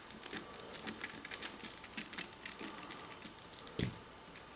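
Screwdriver backing out the rear tang screw of a Remington Model 8 rifle: faint, irregular small clicks and scrapes of metal on metal, with one duller knock near the end.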